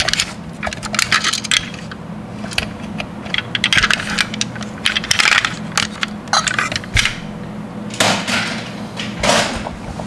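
Die-cast metal toy cars clinking and clattering against one another as they are handled and shifted in a pile, in irregular runs of clicks, over a steady low hum.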